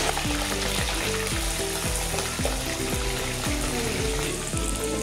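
Raw chicken pieces frying in hot oil in an aluminium pot, a steady sizzle, under background music with a steady beat.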